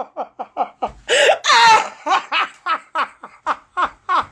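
A person laughing hard in quick pitched bursts, about four or five a second, with a louder, high squealing burst about a second in.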